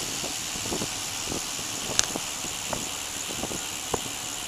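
Steady rushing wind and road noise from riding a bicycle along a paved path, picked up by a handlebar-mounted camera, with a few sharp clicks, the loudest about two seconds in.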